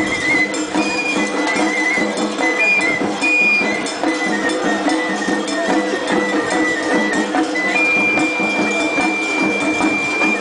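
Japanese festival hayashi music: transverse flutes playing a high melody in short phrases, settling on one long held note near the end, with metal percussion clanking along.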